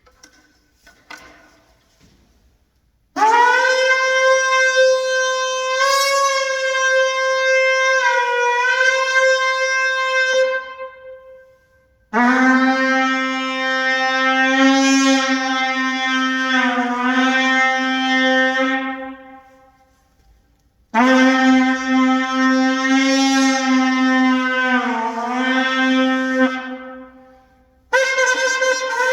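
Sable antelope horn shofar blown in long held blasts: three notes of about seven seconds each, with a short break between them, and a fourth starting near the end. The first blast sits higher than the next two, and each wavers and dips in pitch as it tails off.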